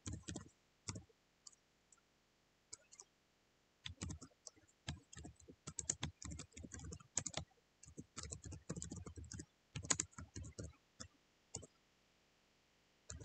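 Typing on a computer keyboard: faint, irregular key clicks, a few at first, then quick runs of keystrokes from about four seconds in until near the end.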